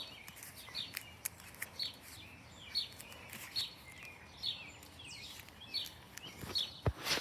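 A bird chirping over and over, short falling chirps about one a second, with a sharp knock near the end.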